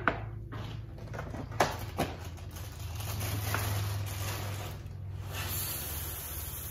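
A few sharp knocks as a glass measuring cup and a cereal box are handled on the counter, then Rice Krispies cereal pouring from the box into the glass measuring cup with a steady dry hiss, starting a little over five seconds in.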